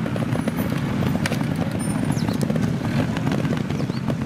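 Trial motorcycle engine running at low revs, its pitch wavering slightly up and down.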